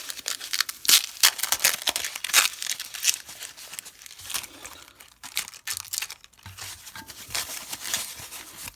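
Packaging being unwrapped by hand: an irregular run of crinkling, rustling and tearing sounds.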